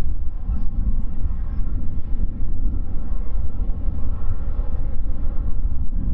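Boeing 787-8 jet engines running at taxi power: a steady low rumble with a faint whine above it.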